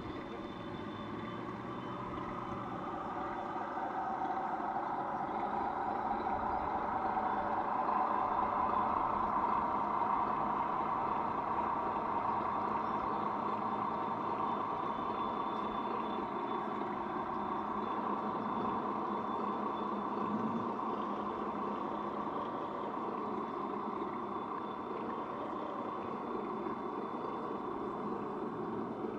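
A motor running steadily, growing louder over the first several seconds and then easing off a little; later its pitch wavers up and down.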